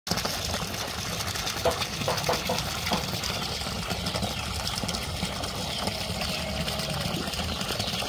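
A steady stream of water from a pipe pouring and splashing into a full plastic basin, as an even, unbroken rush of water.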